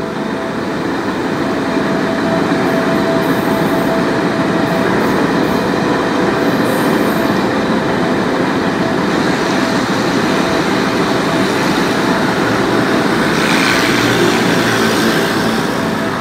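E1000 push-pull express train crossing a concrete river bridge: a steady rumble of wheels on rail, growing a little louder and brighter near the end as the power car passes.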